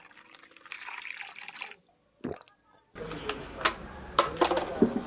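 Water poured from a plastic bottle into a glass, splashing for about the first two seconds. Several sharp clicks and knocks follow as the bottle and glass are handled and set down on a plastic table.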